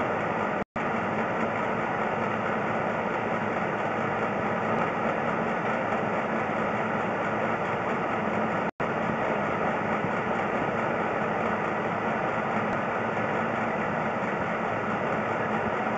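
Steady mechanical drone with hiss, like an engine or machine running, broken twice by a split-second dropout in the audio.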